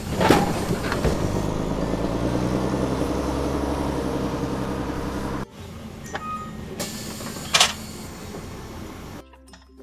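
A bus engine sound with a steady drone, starting with a knock right at the start and cutting off suddenly after about five and a half seconds. After that come a few light plastic clicks from the toy bus, the sharpest near the end as its folding door is opened.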